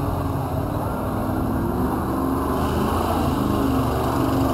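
Engine of an off-road vehicle running steadily, growing a little louder toward the end.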